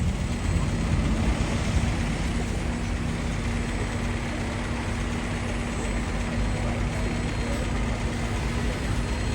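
Steady outdoor traffic noise: a low rumble with an engine humming at one steady pitch, and faint voices in the background.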